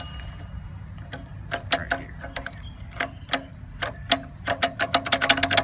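Go-kart centrifugal clutch drum and chain sprocket being turned by hand, clicking unevenly, then in a fast run of clicks near the end. The owner says this clutch is all kinds of messed up.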